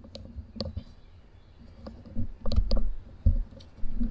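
Irregular clicks and light knocks, about ten of them spread across a few seconds, some with a soft low thump.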